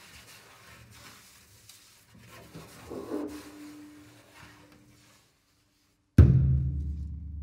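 Solo double bass played with extended techniques: quiet noisy sounds and a short held mid-pitched tone, a pause of about a second, then a sudden loud low strike on the bass about six seconds in, its low strings ringing on and fading.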